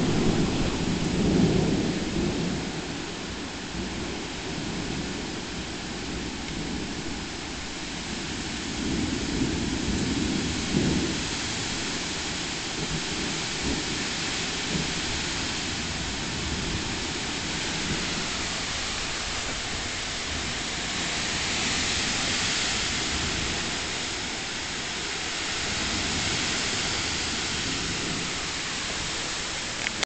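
Thunderstorm: steady rain hiss with low rumbles of thunder near the start and again about ten seconds in. The rain's hiss swells for a couple of seconds about two-thirds of the way through.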